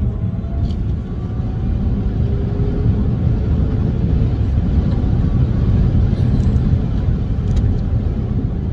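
Steady road and tyre rumble inside the cabin of a Rivian R1T electric pickup under way. A faint electric-motor whine rises slowly in pitch over the first few seconds.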